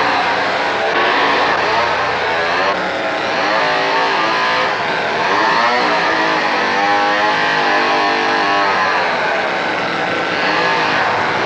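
A chainsaw running loud and steady, revving up and down, with a woman's screams rising and falling over it: a horror-film soundtrack.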